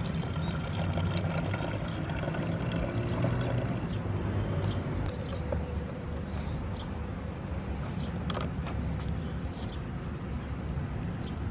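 Steady low rumble of distant city traffic, with a few faint plastic clicks as a trigger sprayer head is screwed onto a plastic spray bottle.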